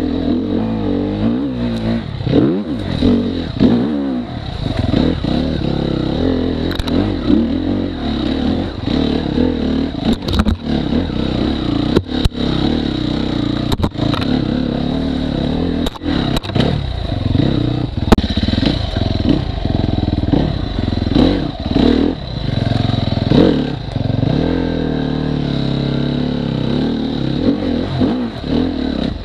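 Off-road dirt bike engine running and revving up and down, the pitch rising and falling as the throttle is worked. Several sharp knocks and clatters come through in the middle of the stretch.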